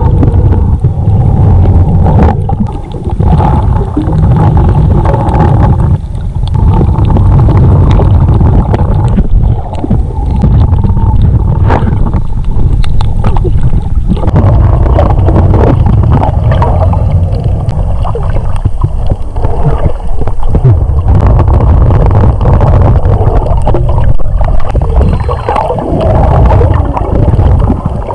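Steady low underwater rumble from a GoPro camera held underwater, with water swirling around the housing and many short crackles and clicks from bubbles and water movement.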